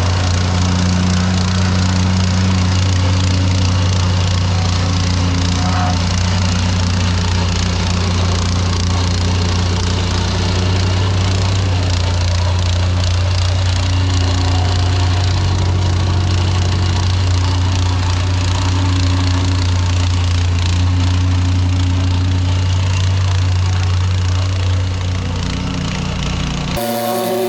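Heavy construction machinery running steadily at backfill work, a constant low drone with a rough rattling noise over it. The sound cuts off suddenly just before the end.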